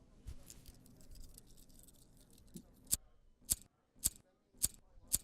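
A soft crackling of many fine clicks, then a run of sharp, separate clicks about two a second.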